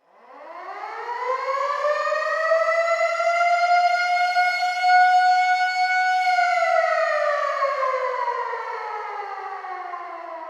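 Civil defense air raid siren winding up from silence in a rising wail, holding one steady high pitch for a few seconds, then slowly winding down in pitch.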